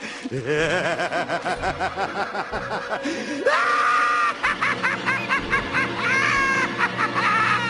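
A crowd of onlookers laughing, then from about three and a half seconds in, several voices shrieking and shouting in loud, high-pitched cries.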